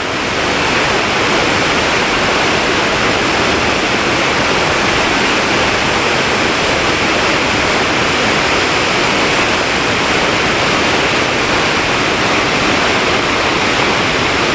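A waterfall with a single drop of just over 100 feet, in full spate after torrential rain, its water thundering over as a steady, unbroken rush.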